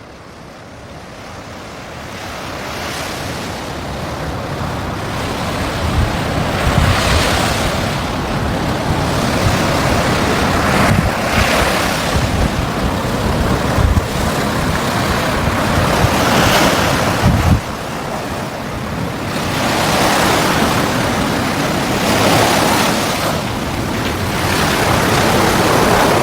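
Sea waves washing onto the shore, swelling and easing about every four to five seconds, with wind buffeting the microphone; the sound fades in over the first few seconds.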